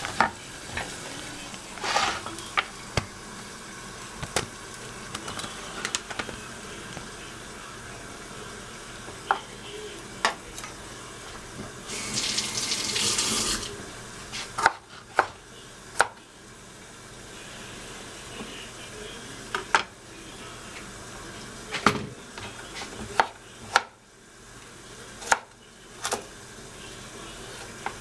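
Knife cutting broccolini on a cutting board: scattered sharp knocks, coming more regularly in the second half. A kitchen tap runs for about a second and a half near the middle.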